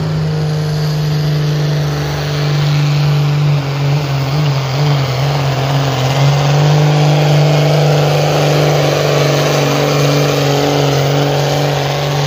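Modified pulling tractor's diesel engine running flat out under heavy load as it drags a weight-transfer sled, with thick black smoke from the exhaust. Its pitch holds steady and wavers briefly about four seconds in.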